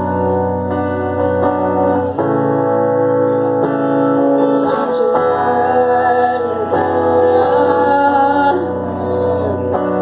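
Electric guitar playing slow sustained chords, with a woman's singing voice over part of it, live.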